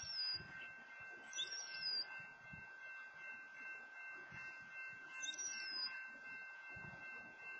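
A bird's high, falling whistle, given three times: at the start, about a second and a half in, and about five seconds in. Beneath it run a faint steady high-pitched tone and a low rumble.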